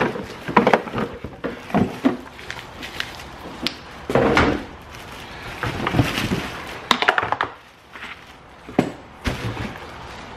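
Clear plastic bag crinkling and rustling as parts are pulled out of a cardboard box, with irregular knocks and thunks of the parts and cardboard against each other.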